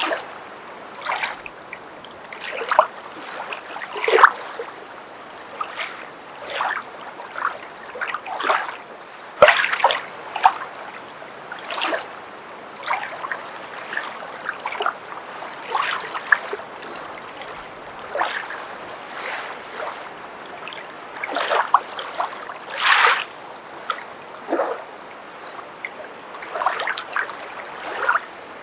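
Footsteps wading through water: a splash and slosh with each step, coming about every second or so at an uneven pace, over a steady background wash of water.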